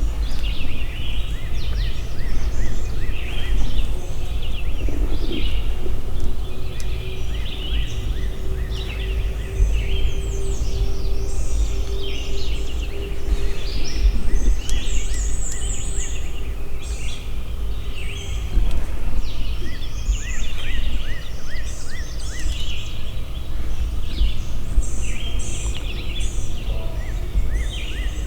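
Dawn chorus of songbirds, with many overlapping chirps and trills, over a steady low rumble. A steady hum comes in for about twelve seconds in the middle.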